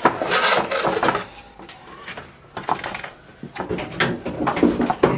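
Keyboard packaging and accessories being handled: a rustle in the first second, then a run of light clicks and knocks, with one louder knock at the end.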